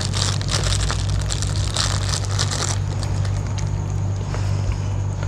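Thin plastic bag crinkling and rustling as it is handled for the first two to three seconds, then quieting, over a steady low hum.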